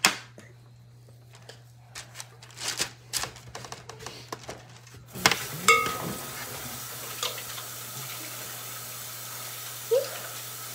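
Metal spoon clicking and scraping against a glass mixing bowl as cookie dough is scooped out. About five seconds in, a steady hiss starts suddenly and continues.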